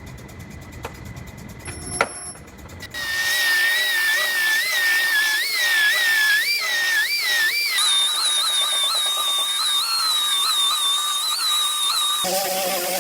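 High-speed power tool whining, its pitch dipping and recovering about twice a second as it bogs under load. It comes in after a sharp click, and its pitch shifts abruptly twice.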